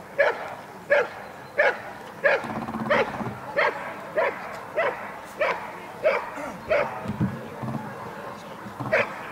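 Dog guard-barking at a motionless helper in the bark-and-hold phase of protection work. Short, evenly spaced barks come about one and a half a second, with a pause of a second or so near the end.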